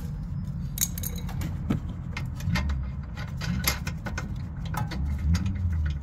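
Irregular light metallic clinks and clicks from suspension-arm bolts and hardware being handled and fitted by hand, over a low steady hum.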